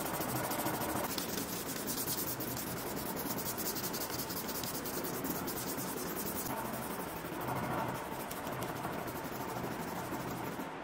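Sandpaper on a block rubbing back and forth along a steel knife blade clamped in a vise: a steady scratchy hiss of hand-sanding.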